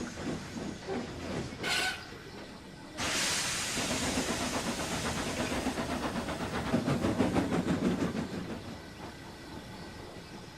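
Steam locomotive sound effects: a few rhythmic chuffs and a short sharp blast, then a sudden loud hiss of escaping steam about three seconds in, with faint regular beats in it, dying away near the end.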